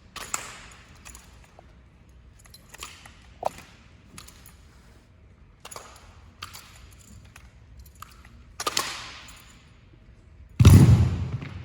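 Drill rifles slapped and clacked by hand during a rifle exhibition team routine: irregular sharp claps, about ten in all. A heavy thud with a ringing tail, the loudest sound, comes near the end.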